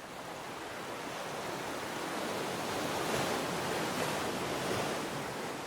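Sea surf washing: a steady rush of water noise that swells toward the middle and starts to fade near the end.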